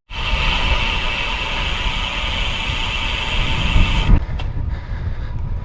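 Road bike on carbon-rimmed Hunt 50 wheels rolling at speed: a steady rushing roar from the carbon rims and tyres with a high, hissing whirr over it. The sound changes abruptly about four seconds in, losing its high part.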